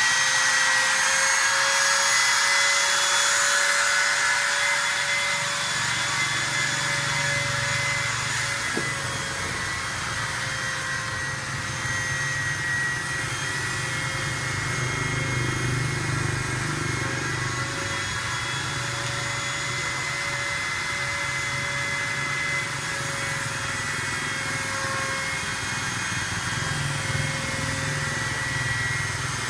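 Automatic aluminium-letter cutting machine running: a steady whine over continuous machine and cutting noise, a little louder in the first few seconds.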